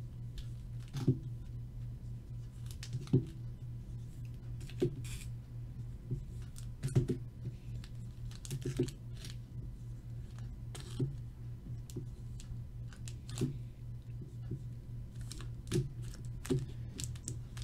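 Foil trading-card packs being handled and numbered with a dry-erase marker: light taps and crinkles every second or so as each pack is written on and set down on a mat, over a steady low hum.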